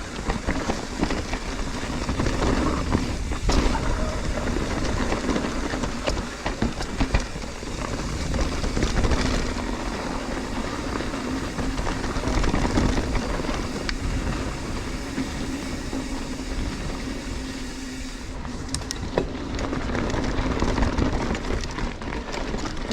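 Mountain bike riding over rough, rocky singletrack: the tyres rumble and bump over rock and roots, and the bike rattles and knocks continuously.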